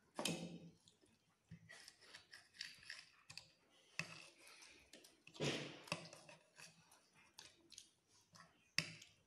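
Eating noises: forks clicking and scraping on plates, with chewing. They come as a run of small irregular clicks, with a few sharper clinks, one near the end.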